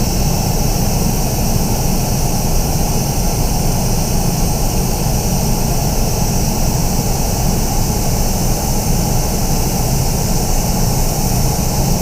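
Spray booth extraction fans running, a steady rushing air noise with no changes.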